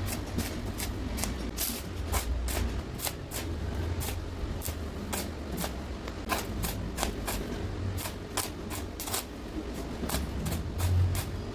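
Welding arc on thin tube, struck in short bursts one after another at about two to three a second, each a brief crackle, over a low steady hum.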